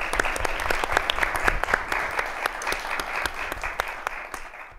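Audience applauding, a dense patter of many people's hand claps that fades out near the end.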